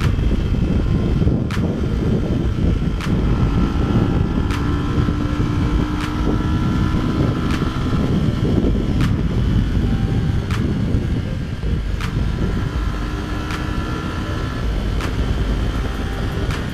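Wind rushing over a motorcycle-mounted action camera while riding at speed, with the engine of a Yamaha R15 V2 single-cylinder sport bike running underneath. Faint regular ticks come about every second and a half.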